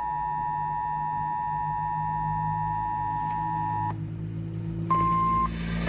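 Emergency Alert System attention signal: a steady two-tone chord that cuts off about four seconds in. About a second later comes a brief single tone, slightly higher in pitch. It announces that a severe thunderstorm warning is about to be read out. A low steady hum runs underneath.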